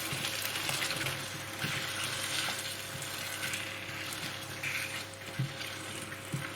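Curry sauce of tomato purée and base gravy sizzling in a hot pan while it is stirred, a steady frying hiss.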